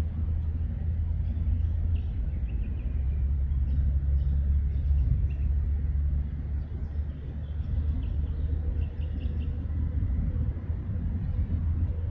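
Steady low rumble of distant military jet aircraft on an airfield runway, with a few faint high chirps above it.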